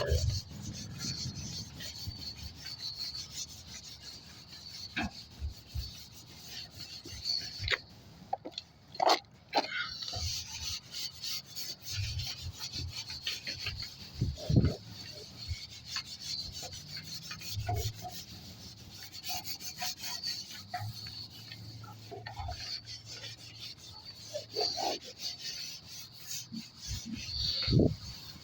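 A rag rubbing and scrubbing across the grimy surface of a garage door: a continuous wiping hiss with scattered light knocks and a brief break about eight seconds in.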